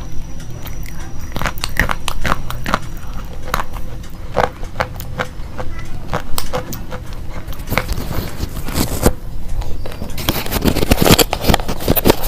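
Slate pencils being bitten and chewed: a run of sharp, crisp cracks and crunches, coming thickest about eight seconds in and again near the end, over a steady low hum.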